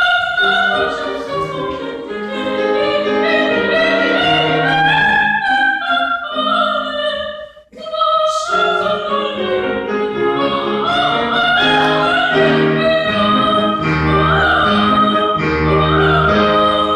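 A soprano singing in classical operatic style with instrumental accompaniment, the voice gliding and wavering in pitch, with a brief break about eight seconds in.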